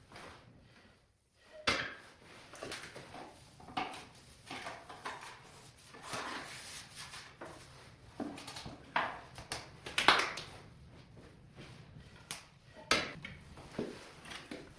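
Irregular knocks, clacks and scrapes of wood and metal at a traditional wood stove as it is tended and fed with firewood, with two louder knocks, one about two seconds in and one about ten seconds in.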